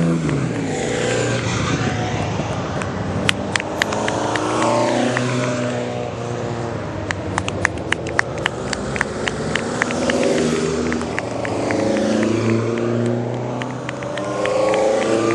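Several small race cars take a hairpin on a hill-climb one after another, their engines revving up out of the bend and dropping in pitch as each passes. A scatter of sharp cracks runs through it, thickest in the middle.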